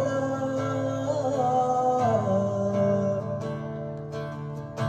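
Acoustic guitar played live, strummed chords under a male singer's held last note, which ends about two seconds in. The guitar then carries on alone, getting quieter, until a strong new strum right at the end.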